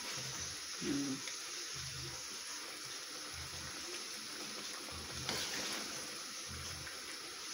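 Thick lechon paksiw sauce simmering and reducing in a pan over low heat, with a steady sizzling hiss, while a metal ladle stirs it. Soft low thuds recur about every second and a half, and the ladle clinks once about five seconds in.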